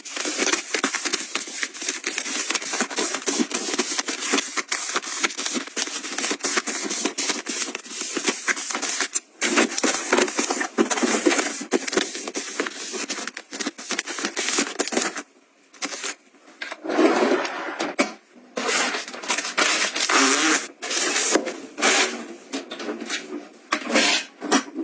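Close-up rustling and crinkling of packaging being handled, with many small clicks and taps, pausing briefly around two-thirds of the way through.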